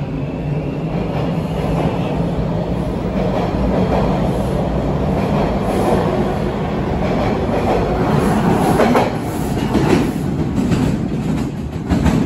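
TTC T1 subway train pulling out of the station and running along the platform. A steady motor hum dies away about halfway through, then the wheels clatter over the rails with several sharp knocks near the end.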